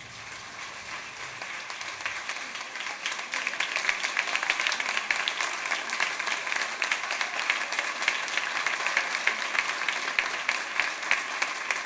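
Audience applauding a concert band, the clapping swelling over the first few seconds and then holding steady.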